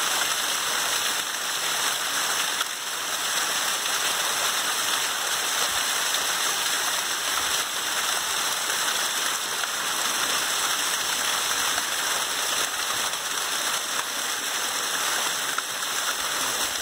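Water pouring over the boulders of a built natural-stone waterfall and splashing steadily into the pool below, a constant rushing splash.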